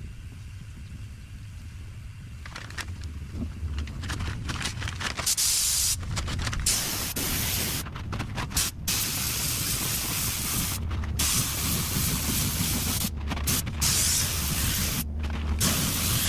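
Paint spray gun hissing as a panel is sprayed. The hiss grows louder about five seconds in, then cuts off and resumes abruptly several times, over a steady low hum.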